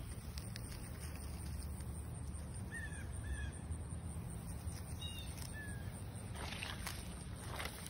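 Outdoor ambience with a steady low rumble, a few short chirping bird calls in the middle, and a rustle near the end.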